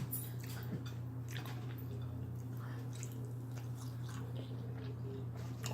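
A person chewing food close to the microphone, with soft, wet, irregular mouth sounds, over a steady low hum.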